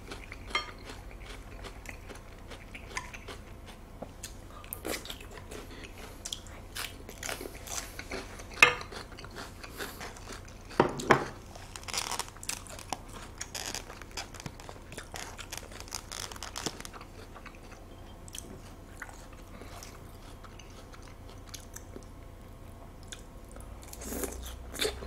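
Close-miked chewing of raw salmon sashimi, with wet mouth sounds and a scattering of sharp clicks, the loudest about nine, eleven and twelve seconds in.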